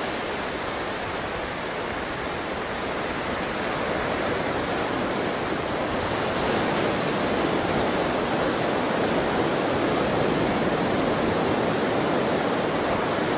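Steady wash of surf breaking on a beach, growing a little louder a few seconds in.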